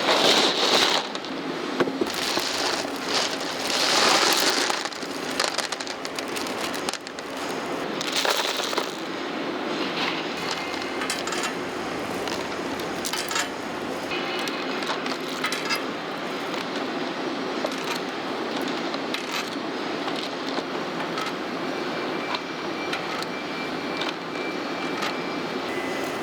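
Factory machinery running steadily, with metal parts clinking and knocking against each other. Several loud hissing surges come in the first nine seconds.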